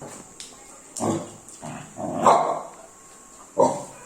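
Pet dog making three short, gruff grumbling barks, an insistent demanding 'talking back' at its owner because it wants something.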